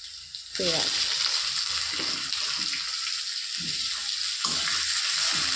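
Sliced onions dropped into hot oil in a kadai where garlic and cumin are already frying: a sudden loud sizzle starts about half a second in and keeps up steadily as they are stirred with a flat metal spatula.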